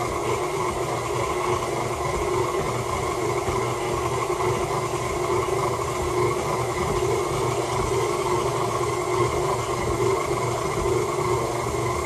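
KitchenAid tilt-head stand mixer running on a low speed with its dough hook, kneading sticky bread dough in the metal bowl: a steady motor and gear hum with several constant tones and no change in pace.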